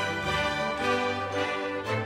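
Background instrumental music with held, sustained notes.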